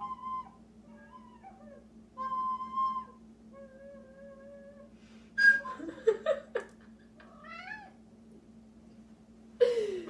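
A recorder plays a few held notes, then a cat meows several times, the last meow loud and falling in pitch near the end.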